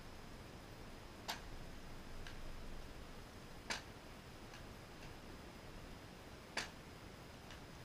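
Shuttle toss machine and bat at work: three sharp clicks about two and a half to three seconds apart, each followed about a second later by a fainter click, as shuttlecocks are tossed up and struck.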